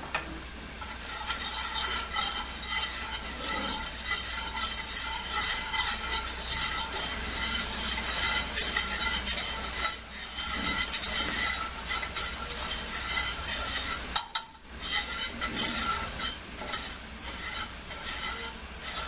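Wire whisk scraping and clicking against a frying pan in quick strokes as butter and flour are whisked into a roux, with the roux sizzling in the pan as the flour cooks in the butter. The whisking stops briefly about fourteen seconds in, then carries on.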